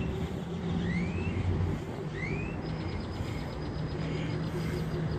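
A vehicle engine idling with a steady low hum. Over it come three short rising whistles about a second apart, then a fast, even high ticking from a little past halfway.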